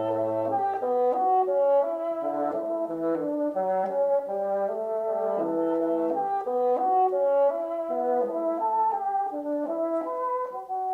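Background music: several instrumental parts play held notes together, moving from chord to chord about every half second.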